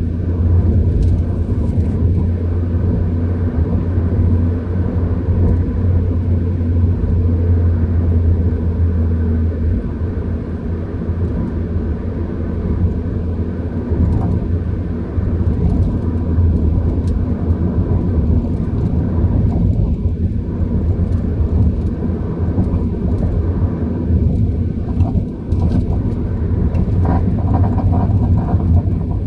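Car on the move, a steady low rumble of engine and road noise. Near the end a faint higher-pitched noise comes in, the abnormal noise that the owner takes for brake caliper slide pins that have lost their grease.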